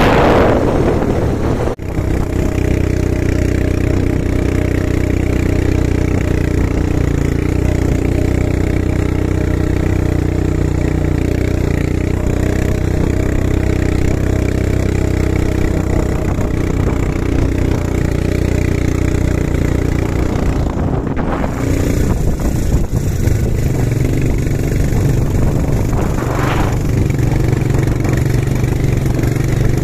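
Quad bike (ATV) engine running steadily while riding over sand, with short gusts of wind noise on the microphone at the start and twice later on.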